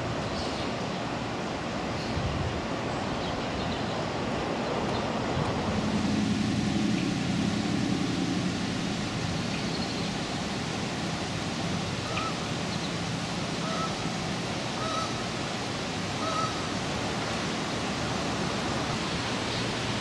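Steady outdoor background noise by a river. A low hum swells briefly from about six to nine seconds in, and a few short, faint bird calls come in the second half.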